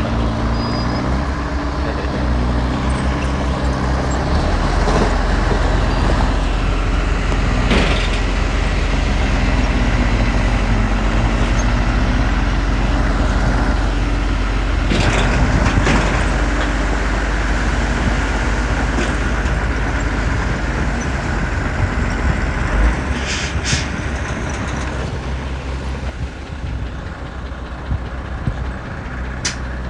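Heavy diesel earthmoving machinery running steadily, its engine note shifting a couple of times, with a few sharp metallic knocks and clanks.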